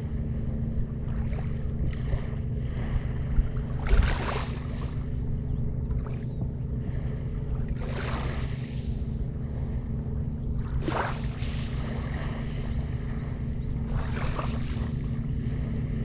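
Wind buffeting the microphone, with small waves washing onto a sandy shore every three to four seconds and a single knock about four seconds in.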